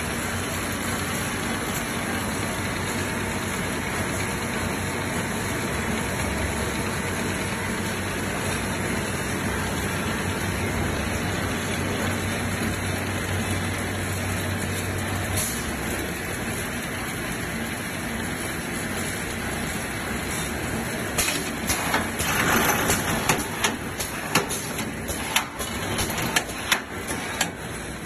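YC900 wire-mesh sleeve knitting machine running steadily, with a low motor hum that drops out about halfway. From about three quarters of the way in comes a run of sharp metallic clicks and clatter.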